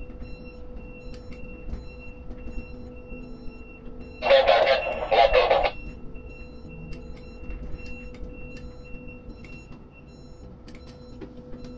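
Crane machinery humming with a repeating electronic warning beep as the grab crane slews. A loud harsh burst of noise about four seconds in lasts about a second and a half.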